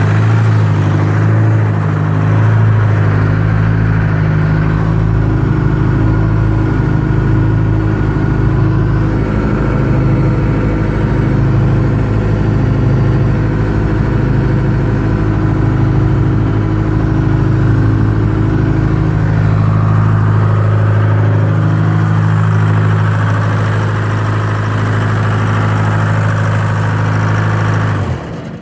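Detroit Diesel two-stroke engine of an old wheel loader idling steadily, then cutting off just before the end.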